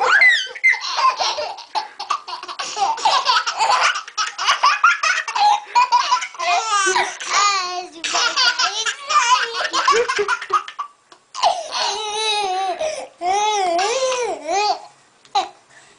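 A baby and a toddler laughing hard together in long runs of giggles and belly laughs, with a short pause about two-thirds through.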